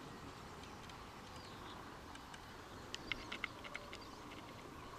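Faint outdoor ambience with wild birds singing: scattered high notes, then a run of quick high chirps about three seconds in, over a steady background hiss.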